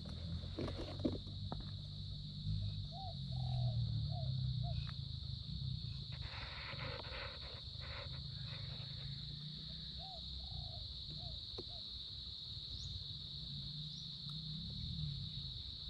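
A steady high-pitched insect drone over a low rumble, with two short runs of about four quick chirping calls from an animal, the first a few seconds in and the second about two-thirds of the way through.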